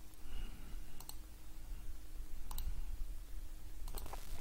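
A few separate computer mouse clicks, spaced a second or more apart, with a quick pair near the end, over a faint low room hum.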